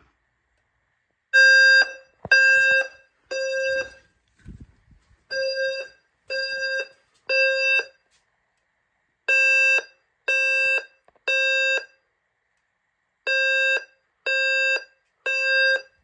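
Simplex TrueAlert speaker strobes sounding the temporal-three evacuation tone between voice messages: a low buzzy tone beeping three times, then a pause, repeated four times.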